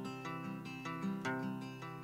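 Background music: an acoustic guitar picking a steady, evenly repeating pattern of notes, the instrumental opening of a song.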